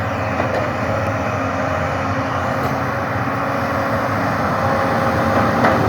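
Engine of a heavy log-handling machine running steadily while it moves logs, with a hum that grows slowly louder.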